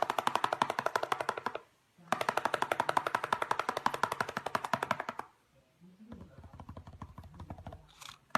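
Budgerigar rapidly tapping its feet, a fast rattling run of about ten taps a second. The taps come in two long runs with a short break, then a softer, lower run near the end.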